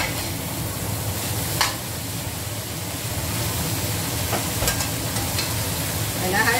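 Diced corn and vegetables sizzling in a stainless steel wok as they are stir-fried with a metal spatula. The spatula scrapes the pan and clicks against it a couple of times.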